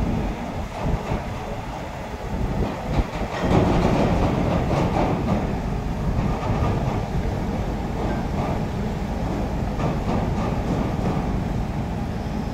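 Steady mechanical rumble of heavy diesel engines running, getting louder about three and a half seconds in.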